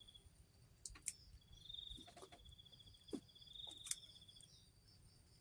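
Faint high-pitched insect trill, a finely pulsing buzz that starts about one and a half seconds in and stops about four and a half seconds in, with a few faint clicks.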